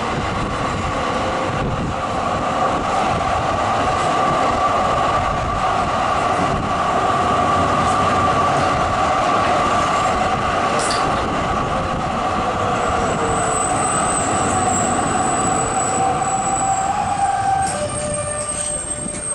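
Zürich tram running along the street, heard through an open window: steady rolling and motor noise with a humming tone. About two-thirds of the way in, a thin high squeal joins and holds. Near the end the hum drops in pitch.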